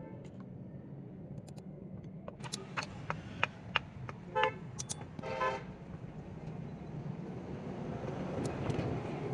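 Several light, sharp metal taps as the smith sets a nail through a knife's wooden handle scales on the anvil. They are followed by two short horn-like toots, the second longer, over a steady low background hum.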